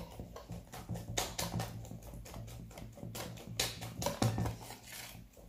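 Wire whisk beating a thick batter in a plastic bowl: quick, irregular clicks and scrapes of the wires against the bowl.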